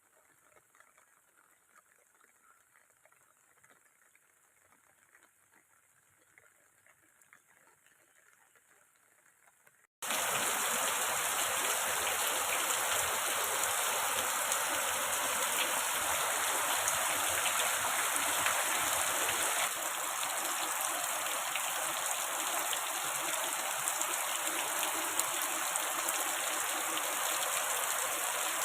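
Faint, quiet crackling, then about ten seconds in a sudden cut to loud, steady rushing water that holds even to the end.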